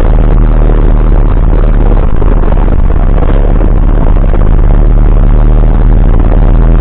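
Ursus C-362 tractor engine running steadily under load while mowing with a rotary mower, heard from inside the cab.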